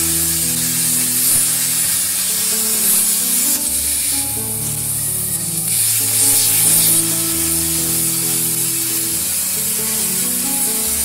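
Plasma cutting torch of an EagleTec 1530PLT PRO CNC plasma table cutting steel plate: a loud, steady hiss of the arc, which thins for about two seconds some four seconds in. Background music plays underneath.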